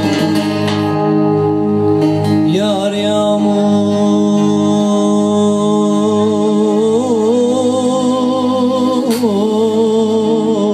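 Turkish zeybek folk song: a solo voice singing long held notes with a wavering vibrato from about two and a half seconds in, over a steady droning string accompaniment with plucked strokes at the start.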